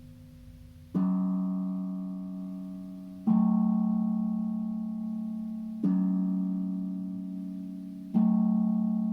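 Steel tank drum (tongue drum) struck four times, about every two and a half seconds, each low note ringing on and slowly fading.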